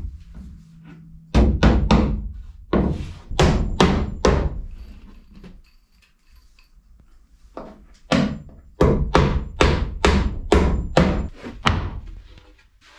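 Hammer driving nails into a wooden stud and plywood frame: sharp, hard strikes in two runs, a handful in the first few seconds, then after a pause about a dozen quicker blows at roughly two or three a second.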